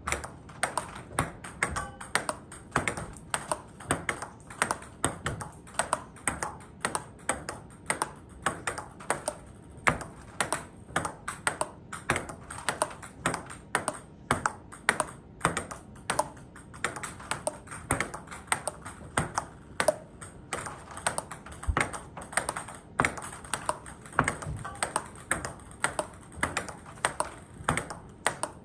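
Table tennis backhand rally: the ball clicking off the paddles and bouncing on the table in a steady, quick, unbroken rhythm of light clicks.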